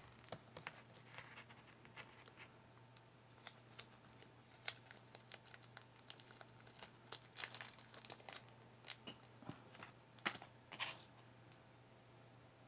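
Faint crinkling rustles and scattered small clicks as small items are handled, over a low steady hum.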